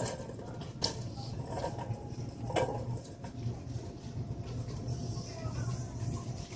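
Shopping cart rolling over a tiled store floor: a low, uneven rumble from the wheels, with a sharp clank about a second in and a louder one near the middle.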